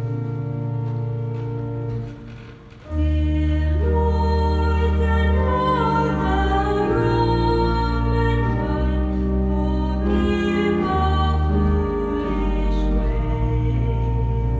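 A church organ holds a chord, breaks off briefly, then comes back in about three seconds in with bass notes moving under it as voices join, singing with the organ.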